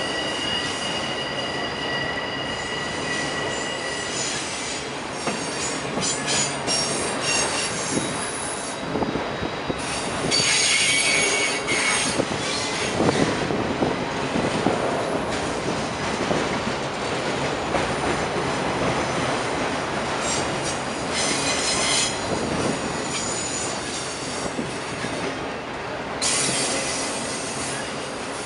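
Freight train of multi-level autorack cars rolling past at close range, with a continuous rumble and clatter of steel wheels on rail. A high steady wheel squeal fades out about four seconds in, and several short bursts of high-pitched screech from the wheels come later.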